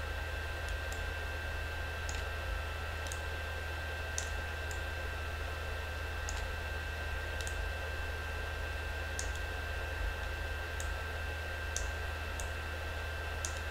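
Computer mouse buttons clicking, about a dozen short clicks unevenly spaced around a second apart, over a steady low electrical hum with a faint high whine.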